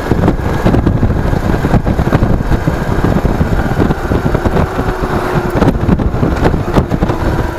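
Steady rumble of wind buffeting an action camera's microphone on a moving vehicle, with a faint engine drone beneath that steadies into a held tone about halfway through.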